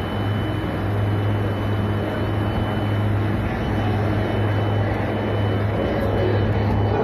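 Steady jet aircraft noise: a constant rushing roar with a low hum and a steady high whine underneath.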